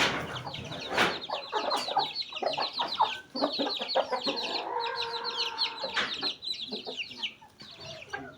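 Chickens clucking, with many short high peeping chirps throughout and one drawn-out call from about four to six seconds in. A sharp knock at the start and another about a second in.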